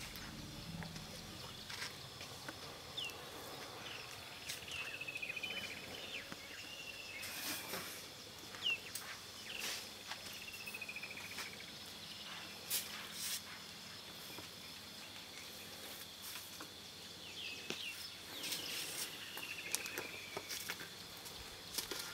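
Bush ambience: a steady high insect drone, with a falling, rattling call repeated several times and scattered sharp clicks and snaps.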